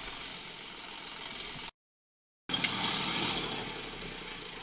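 Tractor diesel engine running steadily. About halfway the sound cuts out completely for under a second, then comes back louder with a couple of sharp clicks and gradually settles.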